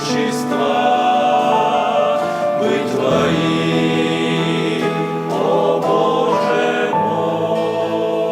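Men's church vocal ensemble singing a hymn in harmony, with long held chords that change every second or so.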